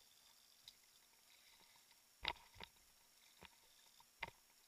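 Near silence with about five short, sharp knocks and clicks at irregular intervals, the loudest a little past two seconds in.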